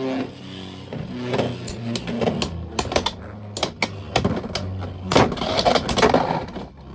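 Two Beyblade X spinning tops, Talon Ptera and Viper Tail, whirring in a plastic stadium. Many sharp clacks sound as they collide. The noise stops suddenly near the end, when Viper Tail is knocked out of the stadium.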